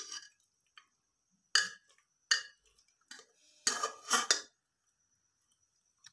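A spoon clinking and scraping against a metal kadai while stirring thick cooked mutton curry. It comes in about six short separate clatters, the loudest pair a little past the middle.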